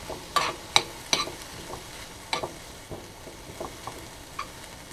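Metal spoon stirring and scraping sautéed mushrooms, onions, chicken and pineapple in a frying pan, with sharp clicks of the spoon against the pan, the loudest in the first second and a half, over a light sizzle of the food frying.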